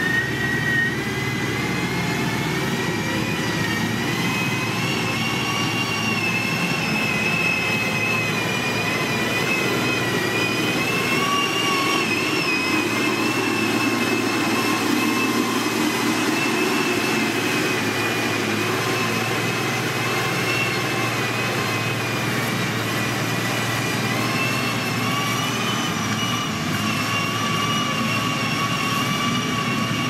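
SANY motor grader's diesel engine running steadily under load while it levels soil, with a high whine that drifts up and down in pitch.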